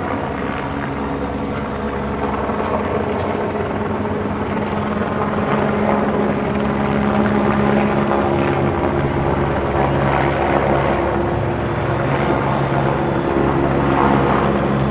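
Military helicopter flying overhead: a steady drone of rotor and turbine with a strong low hum, swelling a little louder about halfway through.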